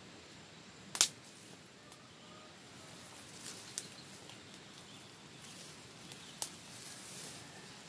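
Rustling of a tarp and brushed undergrowth as a person moves about rigging a shelter, with a sharp snap about a second in and a few fainter clicks later.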